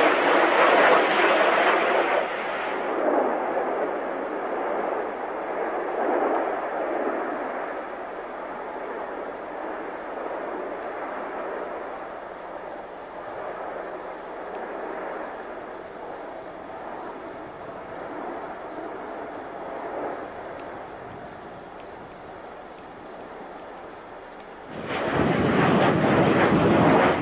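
Jet noise from Blue Angels F/A-18 Hornet jets flying over. It is loud at first, then quieter and steady as they fly off, and loud again near the end as a jet passes close.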